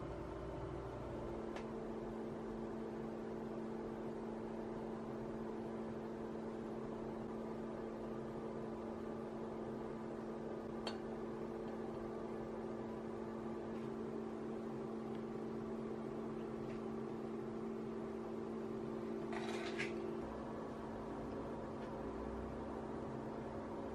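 A steady machine hum made of a few low held tones, which starts about a second in and changes pitch about 20 seconds in. A few faint clicks and a brief scrape sound over it.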